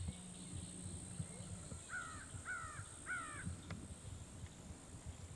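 A crow calling three times in quick succession, faint, over a steady high-pitched insect drone.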